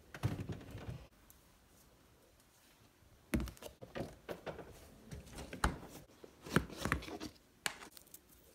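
Irregular light knocks and clatters of objects being handled, in a dozen or so short strikes with pauses between.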